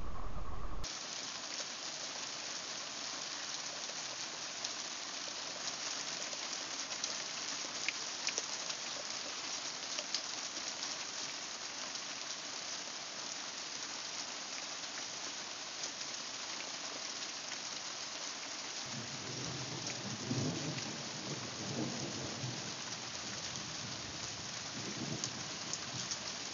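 Thunderstorm: steady heavy rain hissing and pattering, with scattered louder drop taps, cutting in about a second in. About two-thirds of the way through, a low rolling rumble of thunder joins the rain and swells and fades over several seconds.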